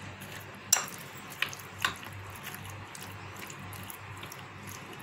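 A spoon stirring chicken and vegetables through a thick marinade in a glass bowl, with three sharp clinks of the spoon against the glass within the first two seconds.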